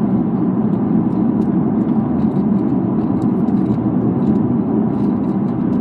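Steady road and engine noise inside a moving car's cabin, an even low rumble.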